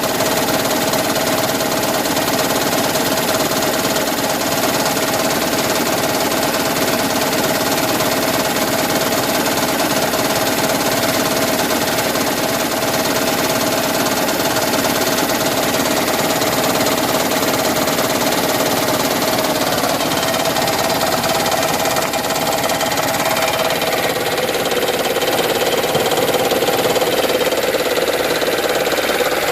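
2010 Toyota Prius's 1.8-litre four-cylinder petrol engine running with a continuous knocking rattle, the noise known as the Prius 'raptor sound'. Its pitch drops a little near the end.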